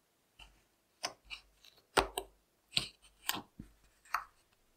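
Fingers poking and squeezing clear slime in a tub, making a run of about eight short, sharp clicks, the loudest about two seconds in.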